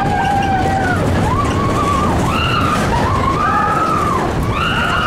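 Mine-train roller coaster running along its track with a constant low rumble, and a series of overlapping squeals that rise and fall in pitch as the wheels grind through the curves.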